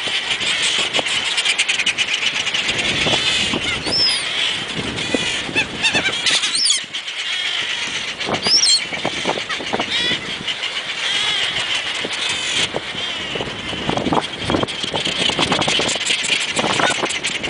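Belcher's gulls calling: several sharp, rising-and-falling cries over a dense, continuous chatter of many seabirds.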